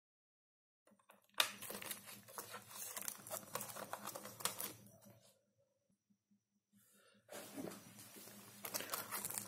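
Clear plastic film wrapped around a wireless router crinkling and rustling as it is handled, in two spells with a pause of about two seconds between them.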